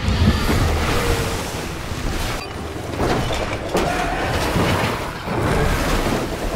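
Film sound effects of a giant-monster fight: a heavy crash as a huge body hits the ground, then rumbling, hissing debris and dust, with further heavy hits about three and five seconds in.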